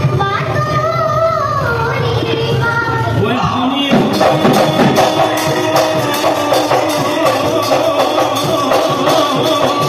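Live Bihu (husori) music: a sung melodic line over dhol drums, the drumming growing louder and busier about four seconds in.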